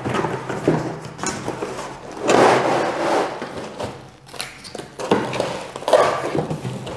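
Cardboard packaging being handled as a plastic-wrapped ceiling lamp is slid out of its box: cardboard scraping and plastic film crinkling, with two louder spells of rustling, about two and five seconds in.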